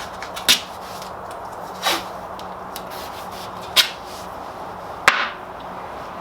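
Hand-handling sounds at a workbench: four short scrapes or clicks spaced about one and a half seconds apart, over a steady low hum.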